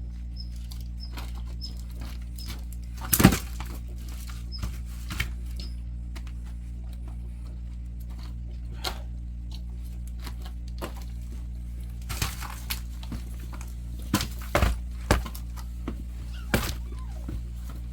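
Hydraulic log splitter running with a steady hum, with sharp cracks and knocks of firewood splitting and being handled: one loud crack about three seconds in, and a run of them near the end.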